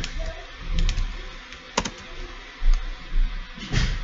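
Computer keyboard and mouse clicks: a few separate sharp clicks, the loudest about two seconds in, with a couple of dull low bumps in between.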